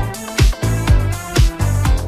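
Upbeat electronic dance music, with a steady beat of about two hits a second over a bass line.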